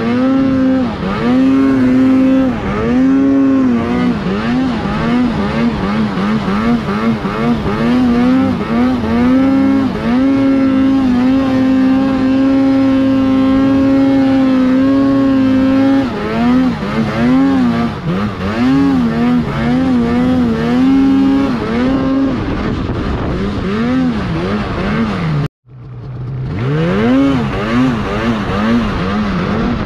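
Arctic Cat mountain snowmobile engine under constant throttle changes while riding deep powder: the engine pitch rises and falls again and again, holds steady for several seconds in the middle, and the sound cuts out suddenly for a moment near the end before the engine returns.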